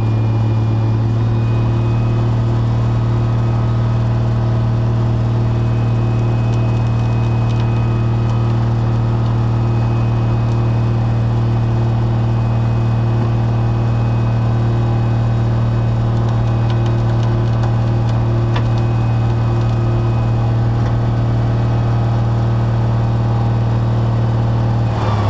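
Heavy tow truck's engine running steadily under load while it drives the winch pulling a semi tractor out of a ditch, with a faint whine on and off over the engine hum. The revs drop right at the very end.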